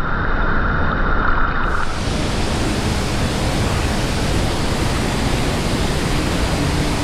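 Steady rush of a waterfall and fast-flowing river water, loud and even. About two seconds in the sound changes abruptly and becomes brighter and fuller.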